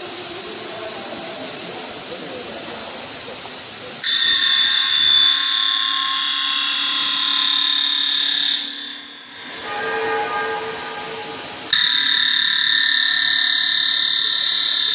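CNC router spindle cutting wood: a steady hiss for the first few seconds, then a loud high, steady whine that starts suddenly about four seconds in. The whine fades briefly past the middle and returns just as suddenly near the end.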